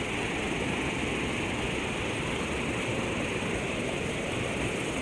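River water spilling over a low weir: a steady, even rush of whitewater.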